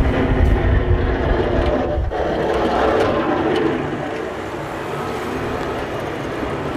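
A vehicle engine running steadily, louder for the first few seconds and then easing off.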